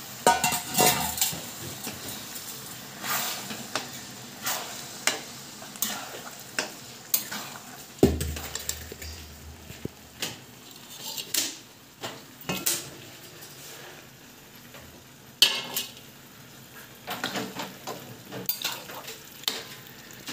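A flat metal spatula stirring and scraping soya chunks through wet masala in a metal kadhai, with irregular clinks of metal on metal against a low sizzle. A dull thump about eight seconds in.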